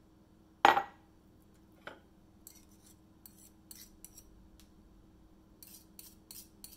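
A glass jar of blueberry preserves set down with a sharp knock on a stone countertop, then a metal spoon scraping and clinking faintly inside the nearly empty jar to get out the last bit of preserves.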